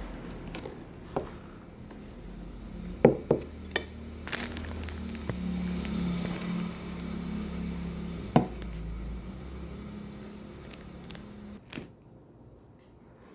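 Indoor handling noises: several sharp knocks and clicks, over a low steady hum that starts about four seconds in and stops near twelve seconds.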